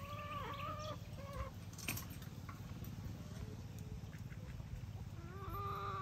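Chickens calling: a few drawn-out, bending hen calls in the first second and a half and another call near the end, over a steady low rumble.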